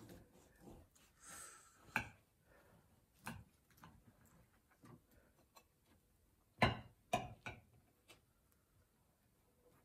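Knife cutting into a clootie dumpling on a plate, with quiet scattered clicks and taps of the blade against the plate, a few sharper ones about two-thirds of the way in.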